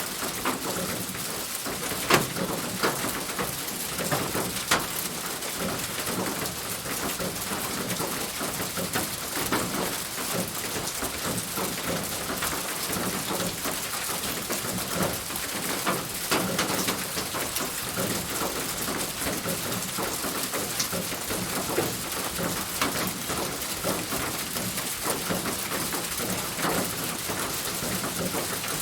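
Steady rain falling on a roof: an even hiss of rainfall with many sharp drops ticking and pattering against the roof surface.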